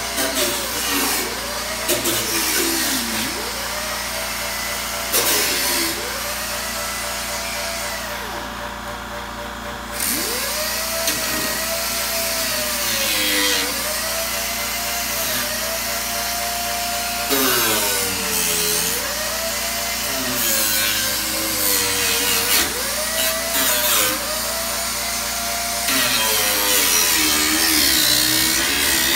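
Small handheld disc sander grinding down the fiberglass leading edge of a kitplane's horizontal tail. Its motor whine dips in pitch and climbs back again and again as the disc is pressed onto and eased off the skin, over a steady gritty hiss.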